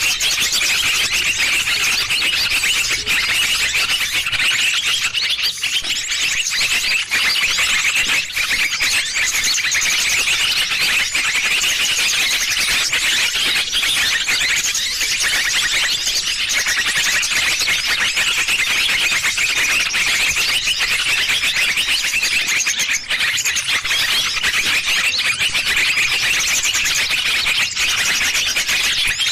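A bird-trapping lure call: a dense, unbroken chorus of small songbirds chirping and trilling rapidly, high-pitched and loud, played to draw small birds in.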